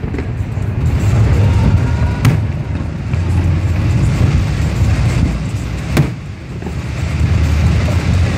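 Fireworks display going off over a continuous low rumble, with two sharp bangs, about two seconds in and again about six seconds in.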